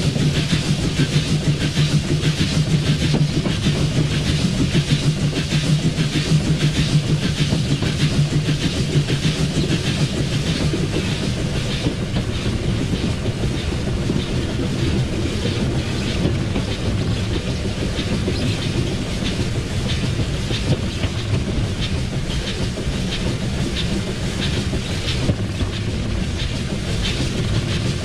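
The 1910 SJ E2 steam locomotive running along the line, heard from its cab: a steady rumble and rattle with wheels clicking over the rail joints. A low hum is strongest in the first third and then eases.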